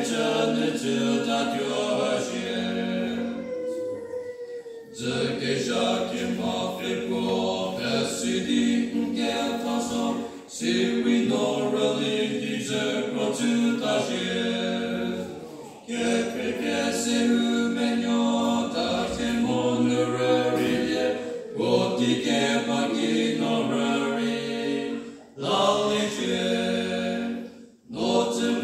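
Male vocal trio singing a cappella in harmony, in long sustained phrases broken by short pauses.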